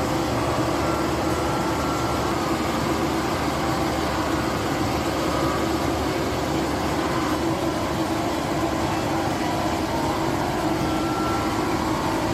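Warzee bale shredder running steadily, its spiral rotor chopping a bale and blowing the shredded hay out of its chute, over the engine of the machine carrying it. A steady, unbroken rush of machinery with a low hum.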